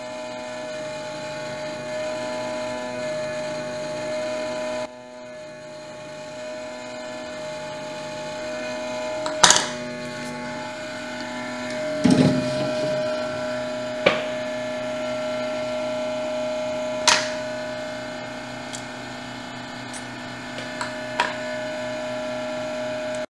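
Hot-air rework station blowing steadily on the board while the VCC core coil is desoldered, with a constant whining hum. Several sharp clicks and knocks from tools on the board come through, the loudest about 9.5 and 12 seconds in.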